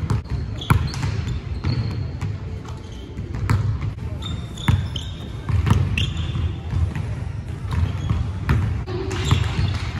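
Basketball bouncing on a hardwood gym floor, a string of sharp thuds at irregular spacing that ring in the big hall, with a few short high sneaker squeaks over a steady low hum of the gym.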